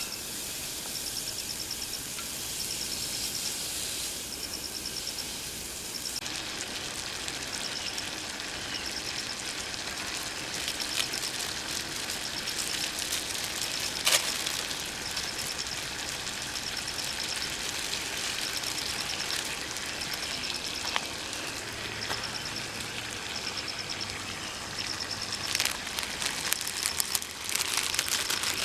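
Crickets chirping in steady repeated pulses over a dense crackling hiss, with scattered sharp clicks and a few louder snaps near the end.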